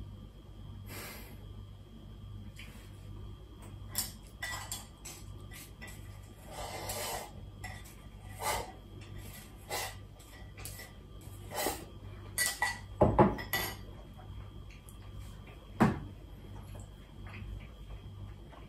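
Tableware clatter while eating udon: chopsticks clicking against lacquered bowls and bowls knocked down on a wooden tabletop, with a slurp about seven seconds in. The loudest knocks come in a cluster about two-thirds through and once more shortly after.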